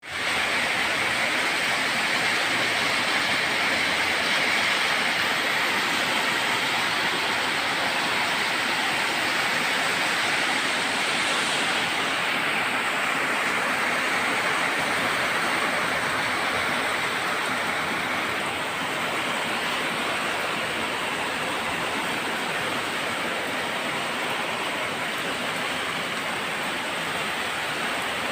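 Steady rain falling, a dense even hiss that eases slightly about two-thirds of the way through.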